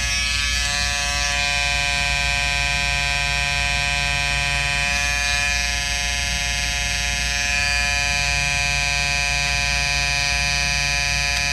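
Wahl Peanut clipper's magnetic motor buzzing steadily while its blade is pressed against machine-embroidered stitches to cut them loose.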